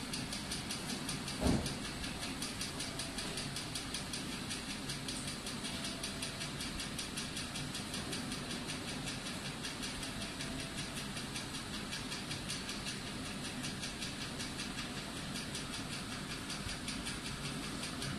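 Steady mechanical running noise with a fast, even pulse, and a single thump about a second and a half in.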